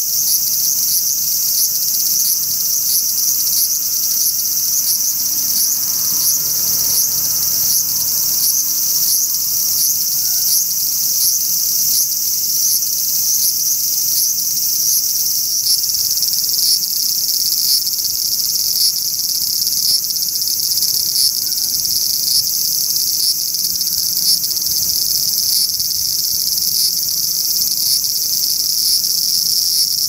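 Large brown cicada (aburazemi, Graptopsaltria nigrofuscata) singing: a continuous, loud, high-pitched buzzing drone with a faint regular pulse a few times a second.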